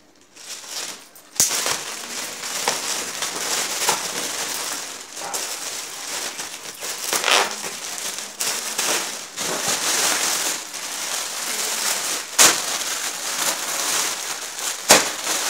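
Plastic packaging crinkling and rustling as a parcel of cushions is unwrapped and handled, starting about a second and a half in, with a few sharper crackles along the way.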